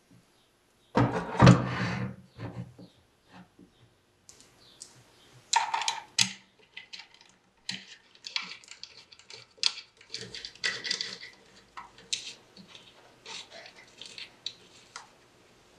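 Hand-crank magneto of an antique Stromberg-Carlson telephone being fitted into its oak cabinet: a heavy knock about a second in, then a run of scattered light clicks and knocks of metal and wood as it is worked into place on its shelf.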